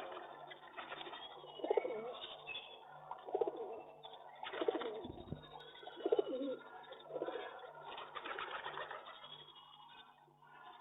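Pigeon cooing, a series of short throaty coos about every second or so, over a steady low hum.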